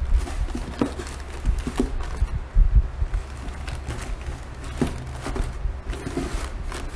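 Plastic bags rustling and scattered light knocks and clicks as wrapped food and a plastic bottle are set into a styrofoam cooler box, over a steady low rumble.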